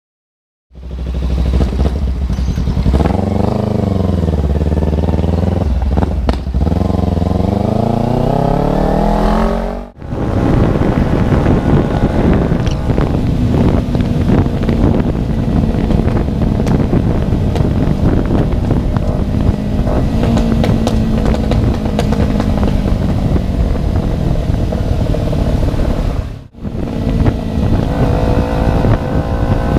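Kawasaki Ninja 250 FI parallel-twin engine running with its muffler removed, loud and raw. For the first several seconds it revs up and down repeatedly; after a sudden break it runs more steadily under way, broken off once more near the end.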